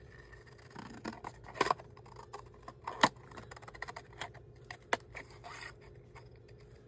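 Paper and craft tools being handled on a desk: scattered rustling with a few sharp clicks, the loudest about three seconds in.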